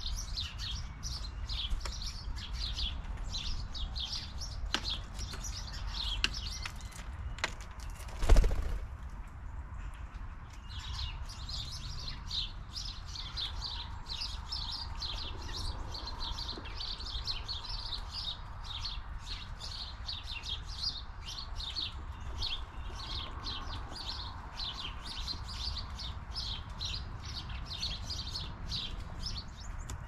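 Small songbirds chirping in quick, repeated high notes, several a second, with a short break about eight seconds in. Just before the break comes a single loud thump, the loudest sound here, and a low steady rumble runs underneath.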